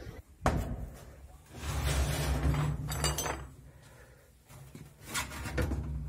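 Handling noises from the plastic and sheet-metal body of a top-load washing machine being assembled: a sharp click about half a second in, a stretch of scraping and rubbing in the middle, then a few short knocks near the end.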